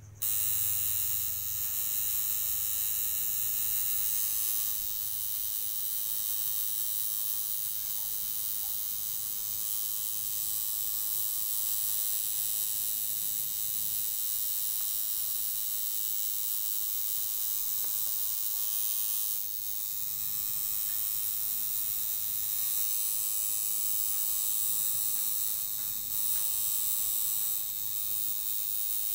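Tattoo machine buzzing steadily as its needle works colour into skin, with a few brief dips in the buzz.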